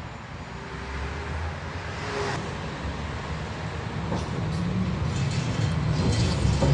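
Inside a 71-605A tram car under way: its traction motors and running gear grow steadily louder as it gathers speed, with a few short clicks and rattles in the second half.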